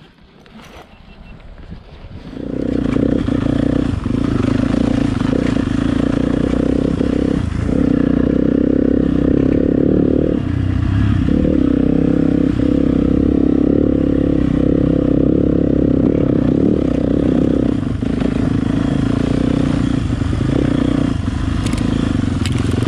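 Dirt bike engine running under way, heard close from the rider's own bike. It comes in about two seconds in and holds steady, with a few brief dips as the throttle is eased and opened again.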